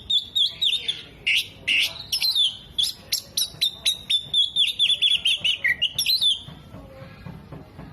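Oriental magpie-robin (kacer) singing loudly: a fast series of sharp chirps, about three or four a second, running into warbled whistled phrases. It stops about six and a half seconds in.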